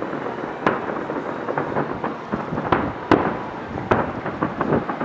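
Aerial firework shells bursting in a continuous barrage: a string of sharp booms, the loudest about three seconds in, over a steady rumble of further bursts and their echoes.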